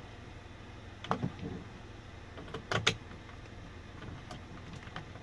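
A few small clicks and knocks from handling a CB radio's mounting screw and bracket: one about a second in and two sharp ones close together near the three-second mark, over a low steady hum.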